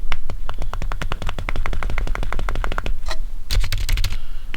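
Keys of a new Apple Magic Keyboard being pressed in fast succession, about ten light clicks a second for some three seconds. A short second run of clicks follows after a brief pause.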